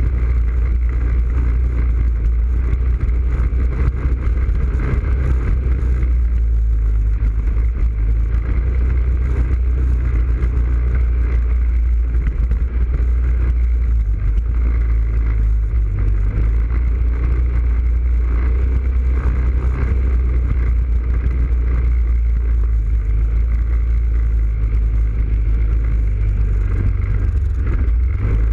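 ATV engine running steadily under way, picked up close by a camera on the quad's front rack, with a heavy, even low rumble.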